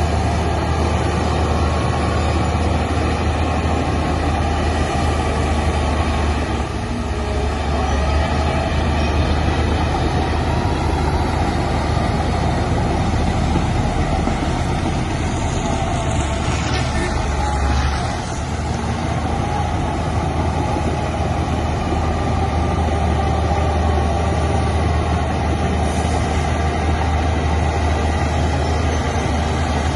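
Heavy diesel engine of earthmoving machinery running steadily under load, a continuous deep drone with brief dips about a third of the way in and again past the middle.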